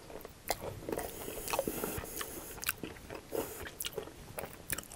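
Chewing a crispy, crumb-coated fried mashed-potato cake close to the microphone: irregular crunches and crackles.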